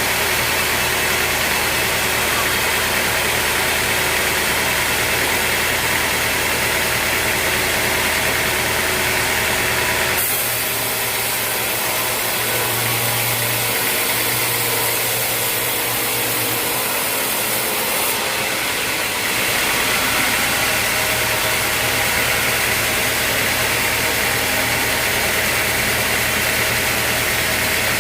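Sawmill machinery running steadily with an engine drone. The sound changes character abruptly about ten seconds in, becoming hissier and losing its low hum, then returns to the first sound about nine seconds later.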